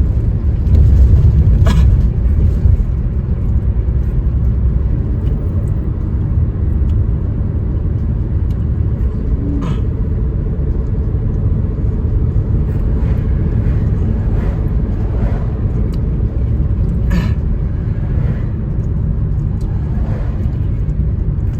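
Steady low rumble of a car's road and engine noise heard from inside the cabin while driving, with a few faint clicks.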